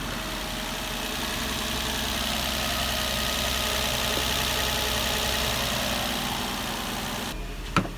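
2005 Nissan Murano's 3.5-litre V6 idling steadily and smoothly, its cylinder 1 misfire cured by new spark plugs and ignition coils. The sound changes abruptly near the end, and two sharp clicks follow.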